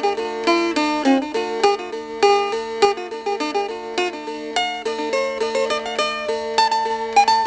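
Background music: a plucked string instrument picking quick runs of notes over a steady, unbroken drone.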